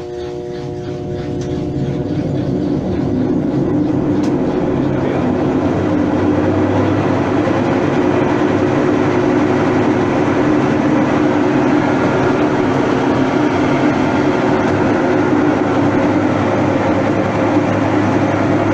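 Mabe 18 kg washing machine in its spin cycle, building up speed over the first few seconds and then running with a loud, steady noise from its transmission bearings, which are rusted from water leaking past a failed seal.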